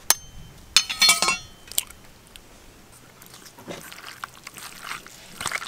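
An egg is cracked with a sharp tap on the rim of a steel bowl, followed by a few clinks about a second in. Then come soft wet squishing sounds as hands mix boneless chicken pieces in their egg, cornflour and spice marinade.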